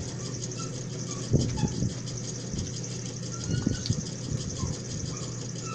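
Two people eating from cardboard takeout boxes with plastic spoons: a few soft knocks and scrapes, the loudest about a second and a half in, over a steady low hum.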